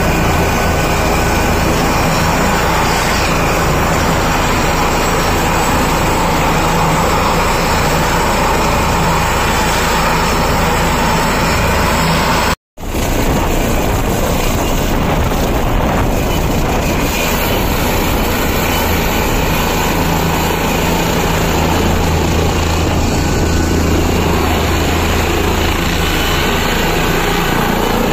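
Helicopter running on the ground with its main and tail rotors turning: a steady loud rotor and turbine noise with a low hum under it. The sound cuts out completely for a split second about halfway through.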